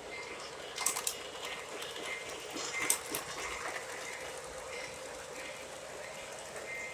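Lionel O gauge model train running on its track: a steady whir with a faint hum. A few sharp clicks come about one and three seconds in.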